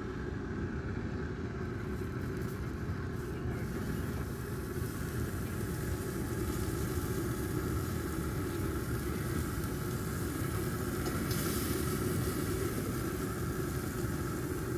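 Country Smokers pellet grill running on high to sear strip steaks: a steady low noise from its fire and fan, with a faint steady hum over it.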